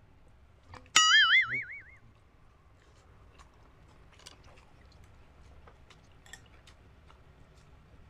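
Faint chewing and small mouth clicks from people eating grilled chicken intestine skewers and pork blood cubes. About a second in, a sudden loud wobbling twang rings for about a second, like a cartoon boing sound effect.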